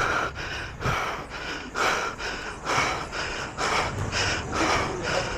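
A footballer breathing hard and rhythmically while running, close to the microphone, about two breaths a second.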